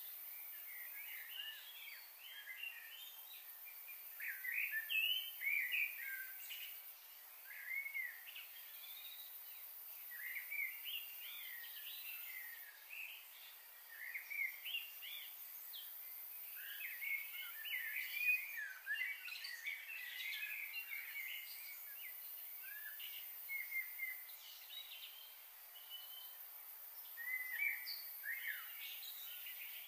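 Small birds chirping and twittering in a busy, overlapping chorus of short, high calls, thicker and louder about five, eleven and eighteen seconds in.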